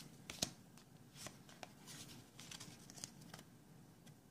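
Faint, scattered rustles and soft clicks of a foil booster pack being opened and its Pokémon trading cards handled.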